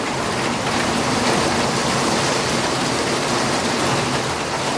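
Heavy rain pouring down steadily onto wet paving.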